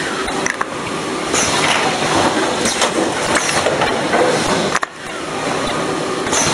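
Automatic chocolate snack-pack cup-filling and packing machine running: a busy, steady clatter of clicks and knocks, with short hisses every second or two.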